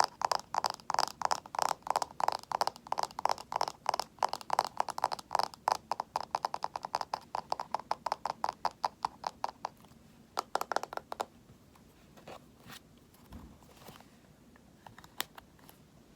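A cosmetic item being scratched with quick, even strokes, several a second. The strokes stop about eleven seconds in, leaving a few scattered light ticks.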